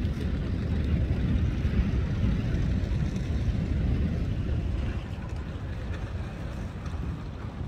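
Wind buffeting the microphone as a steady low rumble over a hiss of sea; it eases a little about five seconds in.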